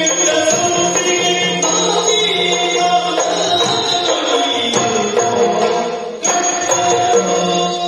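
Yakshagana music: the bhagavata sings in a chant-like style over a steady drone, accompanied by maddale and chande drums and small hand cymbals, with a few sharp drum strokes.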